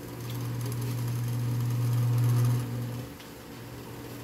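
A steady low hum at one pitch swells louder over about two and a half seconds, then drops back to a fainter hum at the same pitch that carries on. Light crackling sits over the loud part.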